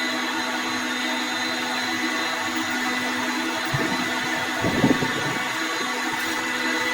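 A workshop machine running steadily with a constant hum, with a few short knocks about four and five seconds in.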